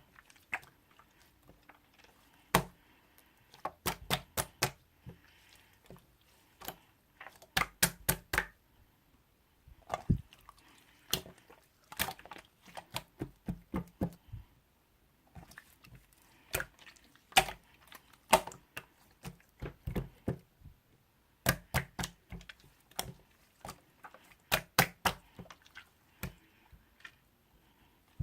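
Sharp clicks and taps in irregular quick runs of several strokes, with short pauses between the runs.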